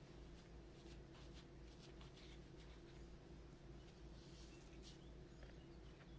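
Near silence with faint soft dabbing and rustling as a sponge is pressed against the wet mesh of a papermaking mould, soaking water out of a freshly formed pulp sheet. A low steady hum sits underneath.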